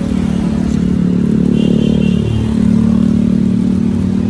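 Motorcycle engine running close by, a steady low drone whose pitch dips and climbs again about two seconds in.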